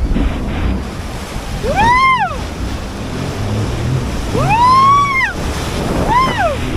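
Wind and surf noise with a low motor rumble beneath, broken by three whistling tones that each rise and then fall, about two, five and six seconds in.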